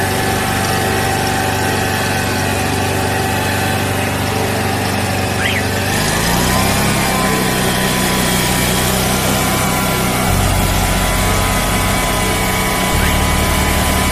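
Van-mounted 350-bar high-pressure sewer jetter running steadily on its 40-horsepower twin engines. Its note shifts about six seconds in, and the low hum changes twice more later on.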